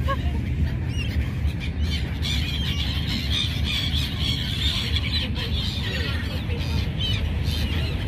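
A flock of gulls calling, many short overlapping squawks, over a steady low background rumble.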